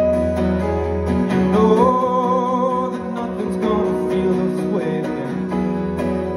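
Live solo performance: a steel-string acoustic guitar strummed steadily while a man sings, holding one long wavering note from about a second and a half to three seconds in.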